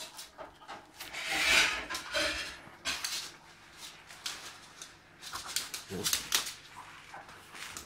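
A small dog gnawing and biting at a raw carrot held in a hand: teeth scraping on the carrot in irregular bursts, loudest about a second and a half in and again around six seconds.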